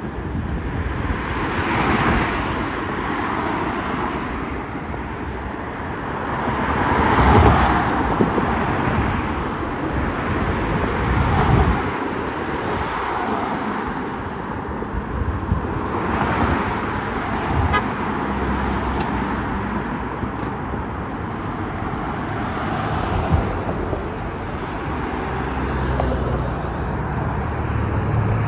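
Road traffic: cars passing one after another, each swelling and fading, the loudest about seven seconds in, with a low steady rumble setting in about halfway through.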